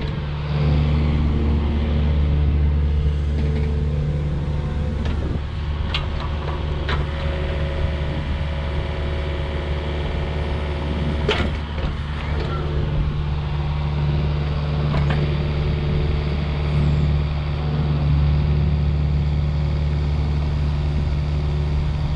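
Yanmar ViO45-6A mini excavator's diesel engine running steadily, with a few sharp clanks through it, the loudest about eleven seconds in.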